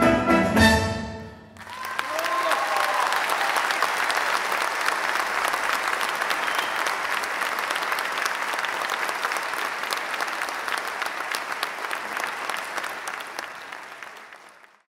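An orchestra's final sustained chord ends about a second and a half in, and the audience bursts into applause, which carries on steadily and fades out near the end.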